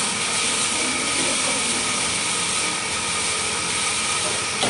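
Steady hiss of a gas stove burner on high flame under a wok, with rice vermicelli sizzling as a spatula stirs it in the wok just after chicken stock has gone in.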